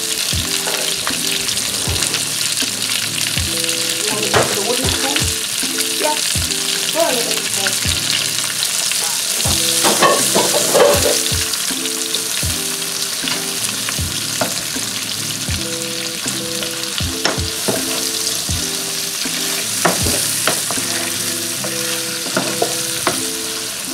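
Sliced onions and minced garlic sizzling steadily in hot oil in a nonstick frying pan while being sautéed. A spatula and a wooden spoon stir them, knocking and scraping against the pan at irregular moments.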